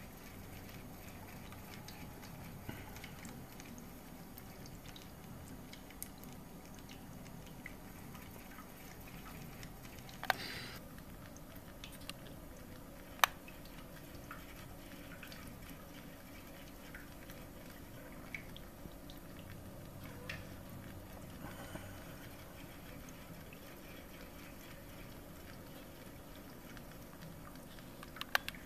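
Faint steady liquid bubbling and hiss from a running HHO (oxyhydrogen) gas setup, broken by a few sharp clicks, the loudest about halfway through and several close together at the end.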